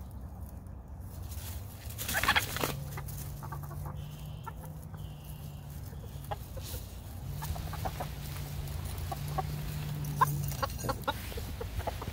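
Pet roosters clucking, with short clucks scattered through and a loud sudden noise about two seconds in. A low steady hum runs underneath from about two and a half seconds to ten and a half.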